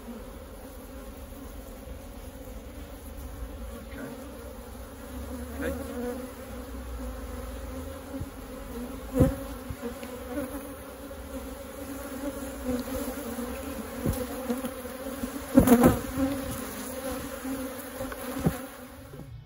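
Honeybees buzzing steadily around an open hive, a colony the beekeeper says is getting agitated. A few sharp knocks cut through the buzz, the loudest about halfway and about four-fifths of the way through.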